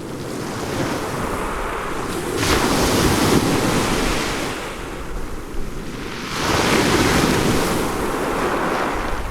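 Ocean waves breaking on a shore, a continuous wash of surf with two waves building and crashing, about two and a half seconds in and again about six and a half seconds in, with some wind noise on the microphone.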